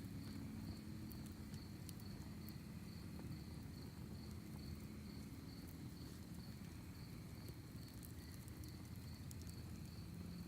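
Crickets chirping in an even rhythm, about two chirps a second, over a wood fire in a fire pit with scattered faint crackles and a low, steady burn.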